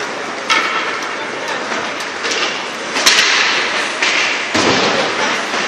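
Ice hockey play in an indoor rink: a sharp crack about three seconds in and a heavy thud against the boards about a second and a half later, over the rink's steady background noise.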